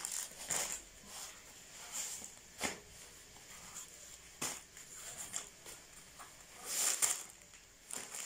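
Clear plastic sheet crinkling and rustling in irregular bursts as soft flatbreads are handled and pressed down on it, loudest near the end.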